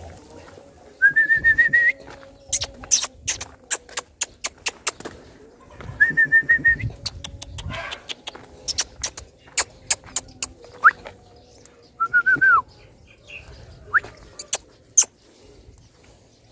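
A bird whistling three times, each call about a second long with a slightly rising, wavering pitch, the last one dropping at the end. In between come many sharp clicks and taps.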